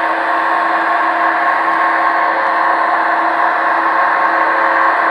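Model railway train running on the layout: a steady whir of motor and wheels on the track, with a constant hum in it.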